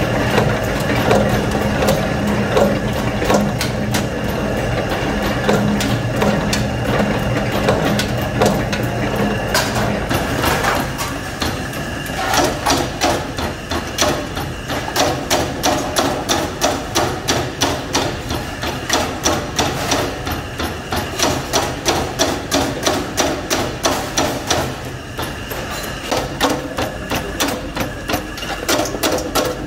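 Mechanical power presses punching a metal motorcycle seat base. For the first ten seconds or so a steady machine hum runs under irregular press strokes; then comes a fast, even run of sharp strokes, about two a second, with a short break near the end.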